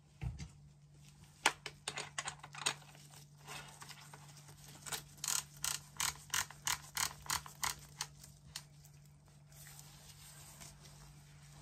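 A Beretta shotgun being handled in gloved hands: a sharp click about a second and a half in, scattered small clicks, then a run of short, evenly spaced scratchy strokes, about four a second, for some three seconds.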